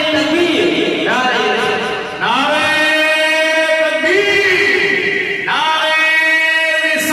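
Unaccompanied devotional singing of an Urdu naat: long drawn-out melodic phrases with held, wavering notes, a new phrase beginning every second or two.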